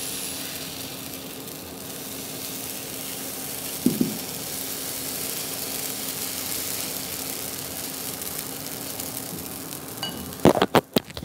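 Dosa batter sizzling steadily on a hot, oiled nonstick tawa as it is spread with a spoon. A light knock comes about four seconds in, and a few sharp knocks near the end.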